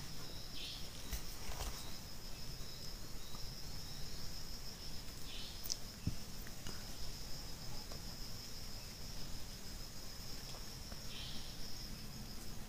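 Night insects chirping in a steady, high-pitched trill, with a few soft rustles.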